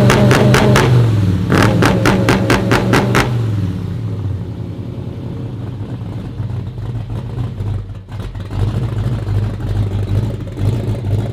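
Ford Ranchero's carbureted V8 running. For the first three seconds it has a loud rhythmic rasp, about five or six pulses a second, then settles to a quieter, steady note.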